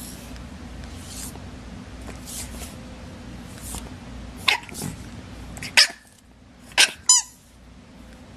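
English bulldog puppy giving a few short, sharp yaps in the second half, the last ones high and pitched, over a steady low hum.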